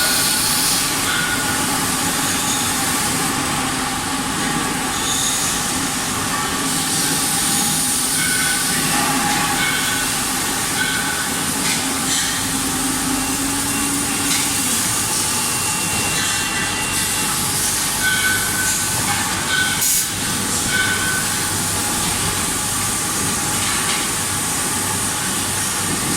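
Automatic circumferential seam welding machine for LPG cylinders running amid factory noise: a steady, loud hiss with short high tones here and there, and a sharp click about 20 seconds in.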